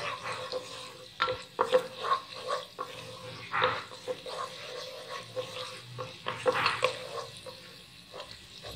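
Minced garlic frying in hot oil in a nonstick pot, with a wooden spatula scraping and tapping irregularly against the pan as it is stirred. A faint steady hum sits underneath.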